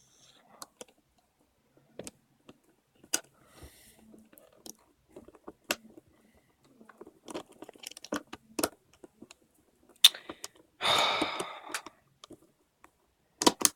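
Plastic clicks and taps of a Dayan Zhanchi 3x3 speed cube's pieces being worked back into place by hand, with a longer noisy rush about eleven seconds in. Two sharp snaps come near the end as a piece goes in.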